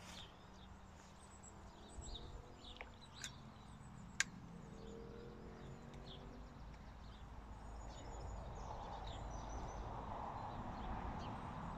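Faint outdoor ambience: scattered bird chirps over a low rumble that rises toward the end, with one sharp click about four seconds in.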